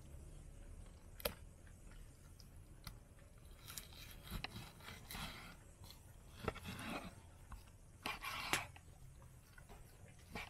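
Large kitchen knife slicing through a raw lamb joint on a wooden cutting board: several short wet cutting strokes, with a few sharp knocks of the blade on the board.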